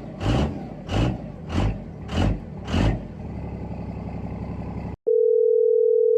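A vehicle engine revving in repeated short blips, about one every 0.6 seconds, then settling to a steady low running hum. About five seconds in it cuts off and a loud, steady single-pitch electronic tone like a phone dial tone starts.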